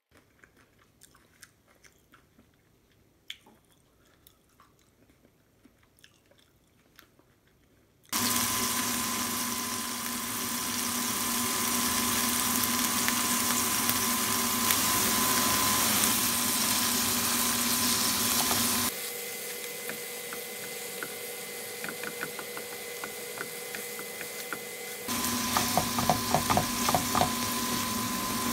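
Faint clicks of chopsticks and chewing. About eight seconds in, a sudden loud sizzle begins: a block of tofu frying in oil with chopped onion in a nonstick frying pan. Near the end a spatula mashes the tofu, adding quick clicks and scrapes over the sizzle.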